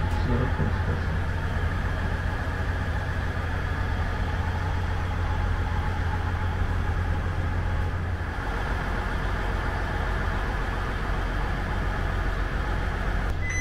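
KiHa 110-series diesel railcar's engine idling while the train stands at a station with its doors open: a steady low hum that shifts slightly about eight seconds in.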